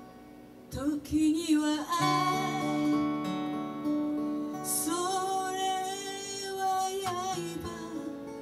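A woman singing live with acoustic guitar accompaniment. Her voice comes in about a second in and holds long notes with vibrato over the guitar.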